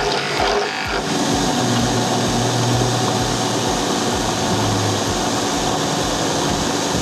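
Electric motor of a homemade mortising machine running steadily, turning a drill chuck and mortising bit. In the first second the bit is still cutting into the wooden workpiece, after which the motor runs free with a steady hum.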